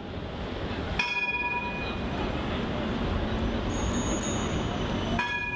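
City street noise with a tram running, a bell ringing out once about a second in and again near the end, and a brief high-pitched trilling ring in the middle.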